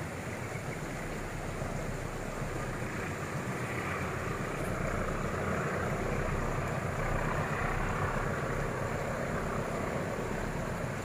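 Diesel freight locomotive heard from afar as it approaches, a steady low engine rumble growing slowly louder.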